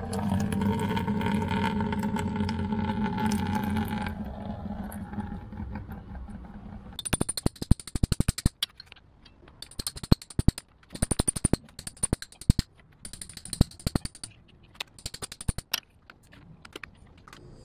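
Diesel fuel poured from the filter housing into a plastic bucket, a steady sound over the first few seconds that fades out. Then five bursts of rapid, ringing metallic taps as a chisel is hammered into the diesel fuel filter's metal housing to open it.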